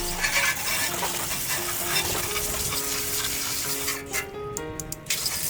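Garden hose spraying water onto a generator, a steady hiss that cuts out briefly about four seconds in, with background music playing over it.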